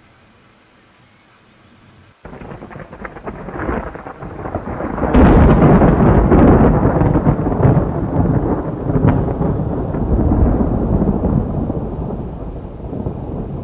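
Rolling thunder over rain: a rain hiss starts about two seconds in, a long deep rumble of thunder swells about five seconds in, and it slowly fades.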